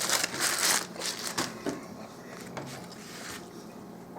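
Paper food wrapper being crumpled: loud crinkling rustles in the first second and a half, then a few softer ones.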